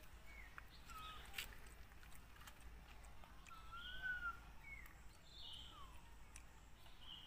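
Faint, short whistled animal calls about every second, some sliding up and down in pitch, with a few sharp clicks in between.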